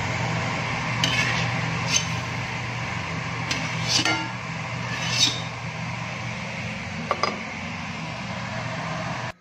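Stainless steel steamer tray and bowls knocking and clinking as steamed vegetables are handled, several short metallic knocks over a steady low hum.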